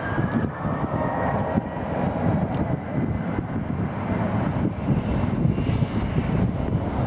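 Boeing 737-800's CFM56 turbofan engines spooling up on the runway: a rising whine that levels off about a second in, over a steady, heavy rumble.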